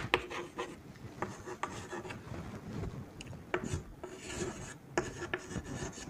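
Chalk writing on a green chalkboard: scratchy strokes broken by sharp taps as letters are begun and dotted.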